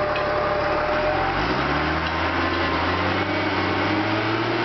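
Yard mule (terminal tractor) diesel engine running. About a second in it revs up and holds at the higher speed.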